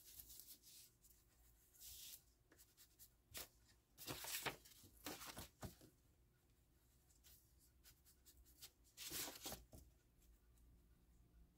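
Faint scrubbing of a foam ink blending tool rubbed against the edges of book-page paper, in several short bouts: near the start, about two seconds in, a longer run around the middle, and again near the end.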